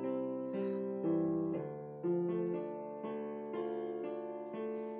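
Background music: a soft piano-like keyboard playing slow chords, a new chord about twice a second.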